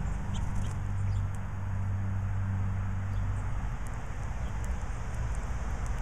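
Steady road traffic rumble, with a vehicle's engine hum that fades out about halfway through, and scattered short, high chirps from small birds.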